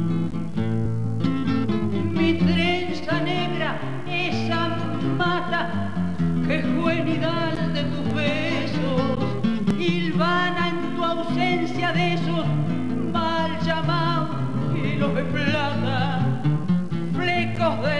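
A woman sings with a wide vibrato, backed by four acoustic guitars playing together. The guitars play alone for the first couple of seconds before her voice comes in.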